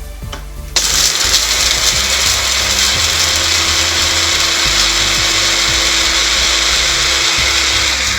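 Electric grinder running at full speed, grinding whole spices into garam masala powder. It switches on suddenly about a second in, runs steadily and stops near the end.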